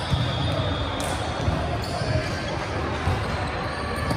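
A volleyball being struck during play, with a few short, sharp thuds of hands and forearms on the ball, over players' voices in the hall.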